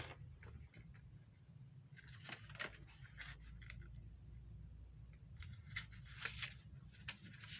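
Faint handling noises: a few scattered light clicks and rustles over a low steady hum.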